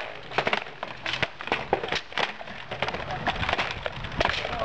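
About a dozen sharp wooden knocks and clacks at an irregular pace, roughly two or three a second: practice weapons striking during sparring.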